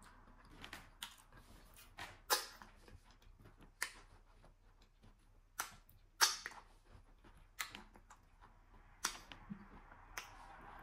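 Close-up eating sounds of fufu and slimy okra soup eaten by hand: sharp, wet lip smacks and finger sucking, roughly one every second, the loudest about two seconds in and about six seconds in.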